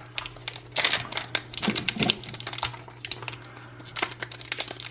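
Foil Pokémon booster-pack wrapper crinkling and crackling in irregular sharp clicks as fingers pick at its crimped seal, which will not tear open.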